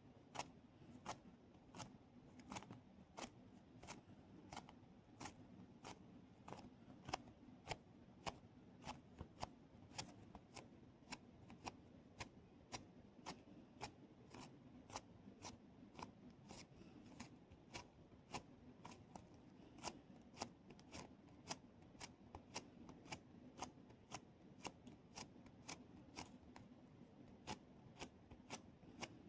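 A steady series of sharp clicks, about two a second.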